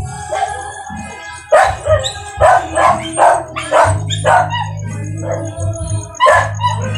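A dog barking repeatedly in loud, short barks at irregular intervals, over background music with a steady bass.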